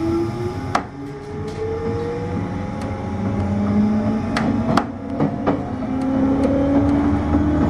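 Running sound inside a chopper-controlled JR 201 series electric train car, heard from the motored car: traction motor whine climbing steadily in pitch as the train picks up speed, over a steady rumble that grows louder. A few sharp clacks of the wheels over rail joints come about a second in and again around four to five and a half seconds in.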